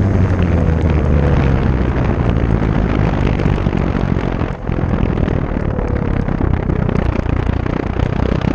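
Wind rushing over the onboard camera of an E-flite Timber RC plane in flight, with its electric motor and propeller running underneath. The sound dips briefly about four and a half seconds in.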